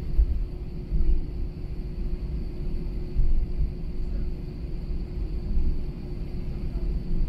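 Cabin noise of an Airbus A321 taxiing: a low rumble from the jet engines and the wheels rolling over the taxiway, swelling and dipping unevenly, with a steady hum over it.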